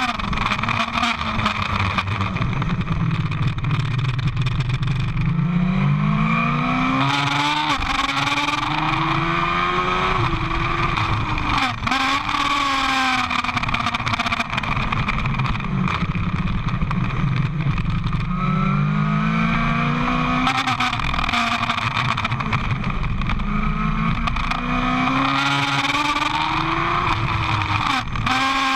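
Sport motorcycle engine heard on board at speed, revs climbing in steps through a run of upshifts, then falling away under braking with downshifts, twice over. Wind rush runs underneath.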